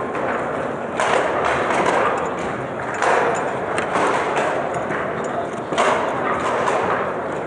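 Ball and rod players knocking and clacking on a Lehmacher foosball table during fast play: many short sharp knocks at irregular times. Under them runs a steady murmur of voices from the watching crowd.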